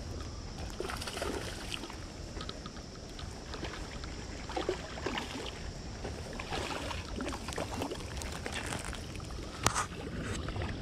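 Water sloshing and splashing at the edge of a canal bank, over a steady low wind rumble on the microphone, with one sharp knock near the end.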